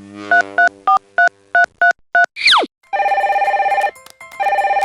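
Cartoon sound effects: a quick run of short electronic beeps between two falling whistles, then a telephone ringing in warbling bursts of about a second each, an incoming call.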